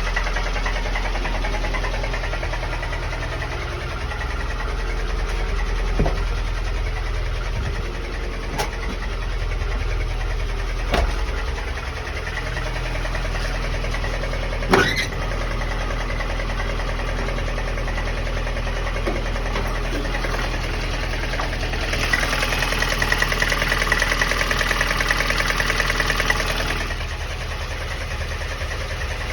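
VAZ 2108 8-valve inline-four engine running with a knock from inside the engine, which the owner cannot identify. A few sharper clicks stand out, and the sound grows louder for several seconds about two-thirds of the way through.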